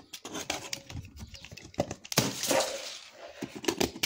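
Utility knife slitting packing tape along the seam of a cardboard box: a run of scratchy cuts and clicks, with a longer scraping slice about two seconds in.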